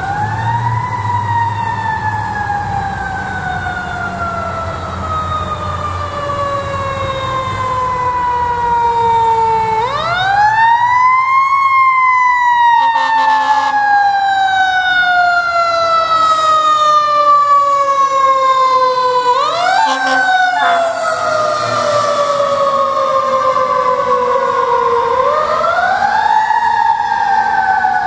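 Fire engine siren wailing, winding up four times: each time the pitch climbs quickly, then falls slowly over several seconds. The truck's engine rumbles low underneath during the first half.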